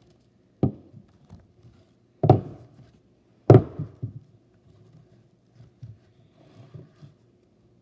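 Cardboard firework packs being handled and set down: three thunks, the last two the loudest, then a few lighter knocks.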